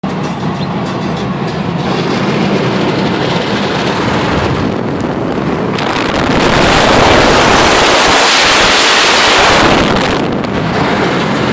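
Steady road and engine rumble heard inside a car cruising at highway speed. From about six seconds in, a loud rush of wind swamps everything for about four seconds, then drops back suddenly to the cabin rumble.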